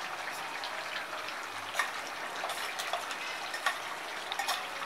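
Chicken and masala sizzling in a kadai: a steady frying hiss, with a few light clicks of the metal slotted spoon against the pan.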